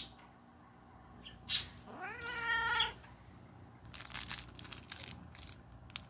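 A cat meows once about two seconds in, a call that rises in pitch and then holds for nearly a second. Short rustling and clicking noises come before it and in the last two seconds, as the toy is handled.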